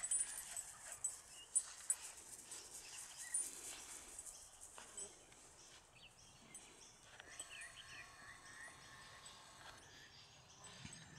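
Quiet outdoor ambience with faint small-bird chirps, repeating briefly over a few seconds past the middle, and a few soft clicks in the first couple of seconds.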